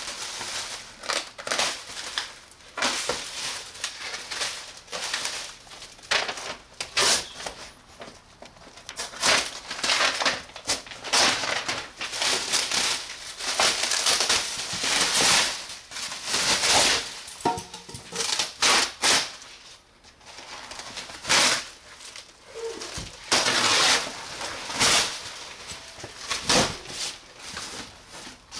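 Plastic stretch wrap and foam packing being cut with a knife and torn away by hand, crinkling and rustling in irregular bursts.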